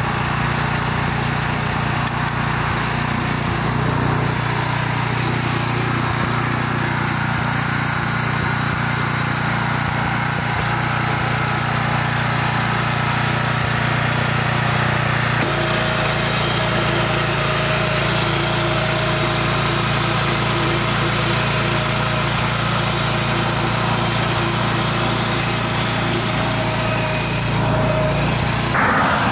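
BCS rear-tine tiller's small petrol engine running steadily under load while its tines churn the soil, its note shifting slightly about halfway through.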